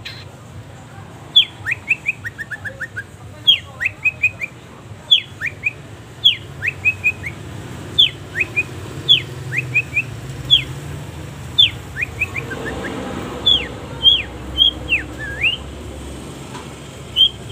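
Long-tailed shrike (cendet) singing: sharp, quickly falling whistled notes, some single and some in fast runs of three to five, repeated about once a second.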